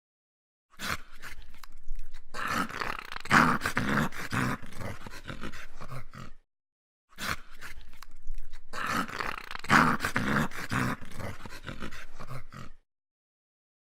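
A dog growling angrily in two stretches of about five and a half seconds each, separated by a second of silence.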